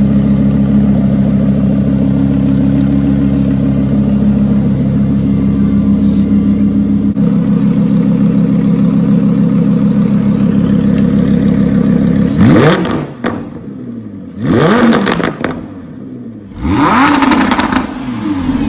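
Lamborghini Huracán's V10 running through a Capristo aftermarket exhaust with its valves open: a steady idle, then three quick revs, each rising and falling in pitch, in the last six seconds.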